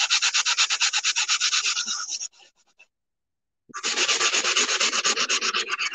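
Sanding sponge scrubbed by hand over a ceramic tile coaster in rapid, even back-and-forth strokes, grinding the printed words off the tile's surface. The scrubbing stops about two seconds in, pauses for about a second, then starts again.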